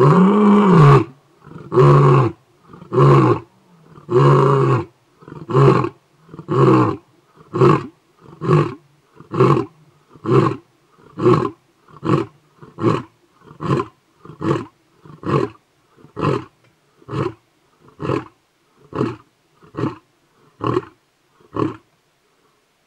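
Male African lion roaring: a few long, full roars at the start, then a long series of shorter grunting roars, a little under one a second, that grow shorter and fainter toward the end.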